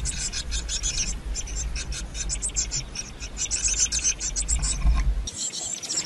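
Eurasian blue tit nestlings inside a wooden nest box, a rapid stream of thin, high-pitched calls and rustling over a low rumble. About five seconds in, the rumble cuts off and lighter outdoor bird chirps take over.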